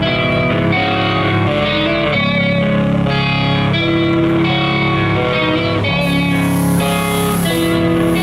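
Live metal band playing, led by electric guitar chords with bass underneath; cymbals come in about six seconds in.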